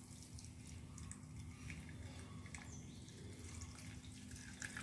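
Faint dripping and trickling of freshly blended coriander and lemon juice as it is strained through a filter, over a faint steady hum.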